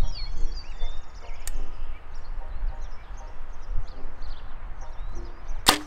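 Birds chirping over a steady low rumble while a compound bow is held at full draw; near the end the bow is shot, one sharp snap of the string and limbs with a short ring.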